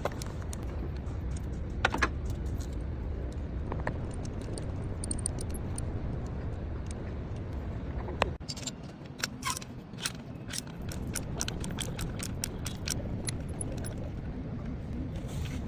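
Scattered light metallic clicks and clinks over a steady low hum. The hum drops away for a moment about eight seconds in, and the clicks come quickly one after another after that.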